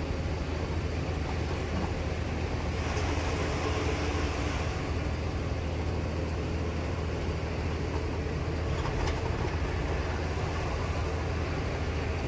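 Truck driving on the road, heard from inside the cab: a steady engine drone with a low hum and even road and tyre noise.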